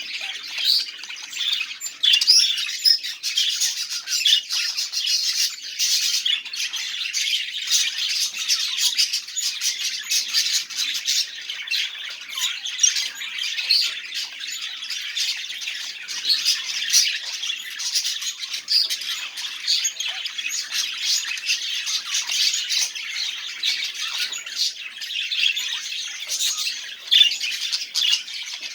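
Budgerigars chattering with constant squawks and chirps in a dense, unbroken stream.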